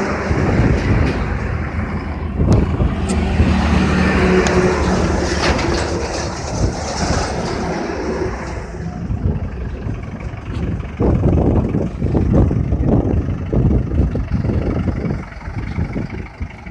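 Tractor engine running under load while driving a tractor-mounted earth auger. About nine seconds in, the high hiss drops away and the sound turns rougher and more uneven.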